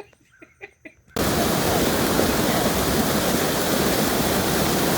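Steady rush of a waterfall pouring over a mill dam, cutting in abruptly about a second in, after a few faint clicks.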